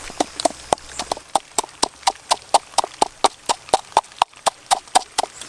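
Wooden pestle pounding chillies and garlic in a wooden mortar: steady hollow wooden knocks at about four strikes a second.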